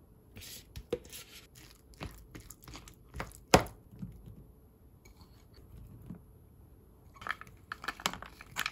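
Food being added to a clear plastic food container: scattered taps and clicks of a spoon against the tub and blueberries dropping in, with one sharp knock about three and a half seconds in. Near the end comes a quick run of clicks as walnut pieces are poured in.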